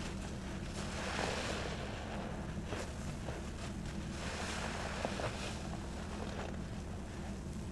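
Wet squelching and crackling of thick soap foam as a large sponge is squeezed by hand, coming in several surges, over a steady low hum.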